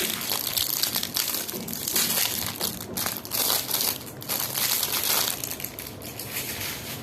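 Packaging crinkling and crackling as it is handled and unwrapped, dying down about five seconds in.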